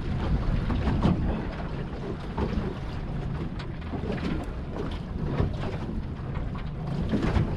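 Wind buffeting the microphone on a small boat at sea, with water slapping against the hull in irregular splashes.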